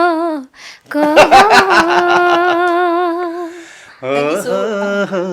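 Unaccompanied singing: a woman holds a long note that ends about half a second in, then after a breath comes in again on a held note over a quick run of sharp taps. Near the end a man's voice joins with low humming that rises in pitch.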